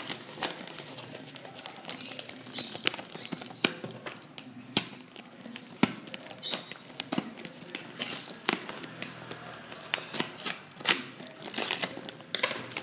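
Brown paper wrapping and corrugated cardboard packaging torn and crumpled by hand, with irregular sharp crackles and rips.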